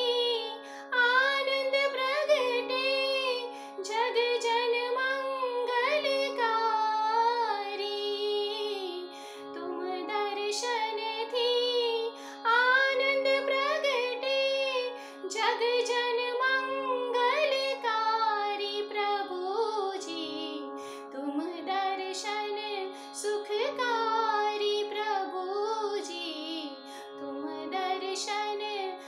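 A woman singing a Jain stavan (devotional hymn) solo, in a bending, ornamented melodic line over a steady held drone note.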